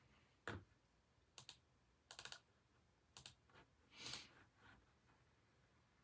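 Faint, irregular clicks and taps, some singly and some in quick clusters of two or three, about a second apart, with a slightly longer soft scrape about four seconds in.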